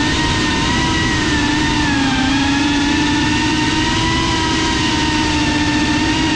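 FPV quadcopter's electric motors and propellers whining steadily in flight. The pitch wavers with the throttle, dipping a little about two seconds in and rising again.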